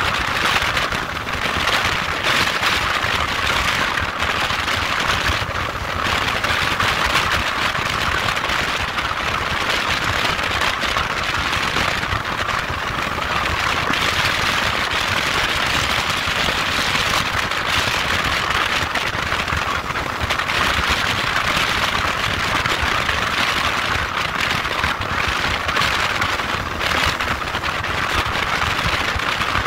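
Steady rushing noise of a motorcycle on the move: wind over the microphone with the vehicle's running noise underneath, unchanging throughout.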